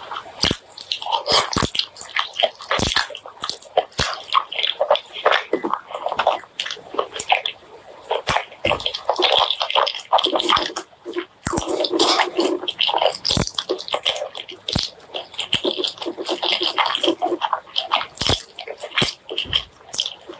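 Close-miked eating of spicy pork leg curry and white rice: continuous wet chewing, full of irregular sharp clicks and short moist bursts.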